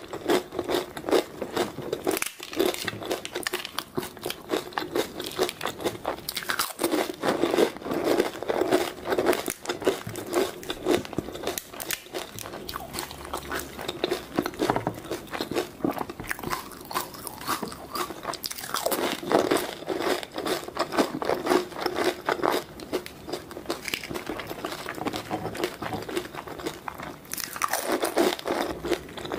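Pani puri being eaten close to the microphone: crisp hollow fried puri shells cracking and crunching between the teeth, with wet chewing of the spiced-water-soaked filling. Rapid crackling runs on with short pauses between mouthfuls.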